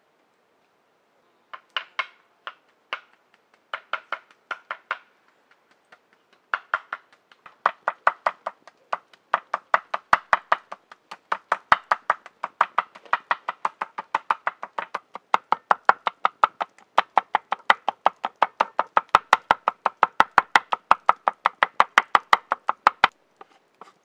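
Carved wooden chopper knocking on a wooden cutting board as it mashes baked eggplant. A few scattered strokes at first, then steady rapid chopping at about four to five strokes a second, which stops just before the end.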